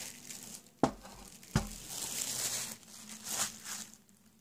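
Clear plastic wrap crinkling and tearing as it is pulled off a satellite dish receiver, with two sharp knocks about a second and a second and a half in as the receiver's case is handled.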